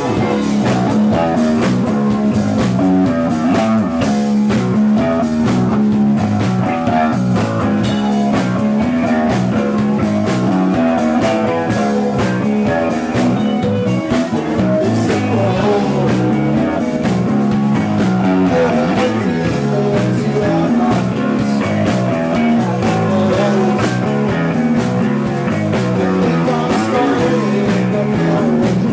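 Live rock band playing loud and steady: guitars, bass guitar and drum kit together.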